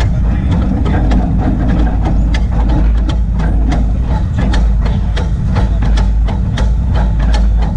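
24-inch gauge Crown 4-4-0 coal-fired steam locomotive running along its track: a steady low rumble with frequent sharp clicks and ticks.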